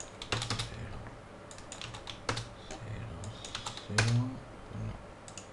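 Computer keyboard typing in several short runs of key clicks as numbers are entered into a field. About four seconds in, a brief low hum from the typist's voice comes with the loudest click.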